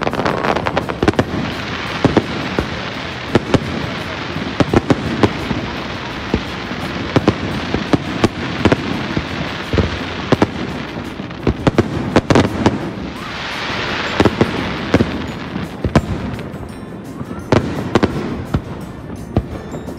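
Fireworks display: a rapid string of bangs from bursting shells over dense crackling and hissing, with a heavier surge of crackle about two-thirds of the way through.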